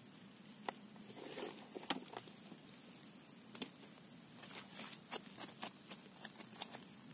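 A dozen or so light, sharp clicks and taps, scattered and bunched toward the end, from fishing tackle being handled at close range while a freshly caught tilapia is dealt with. A faint, steady high-pitched tone runs beneath part of it.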